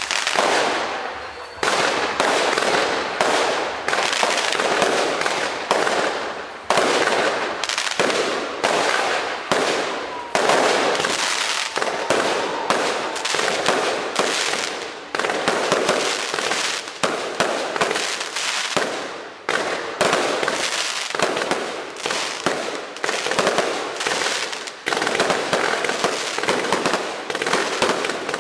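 Aerial fireworks display: rapid, near-continuous bangs and crackling bursts, several a second, with short lulls every few seconds.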